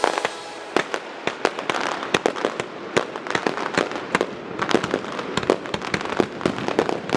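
Fireworks display: a rapid, irregular string of sharp bangs and crackling pops over a steady hiss.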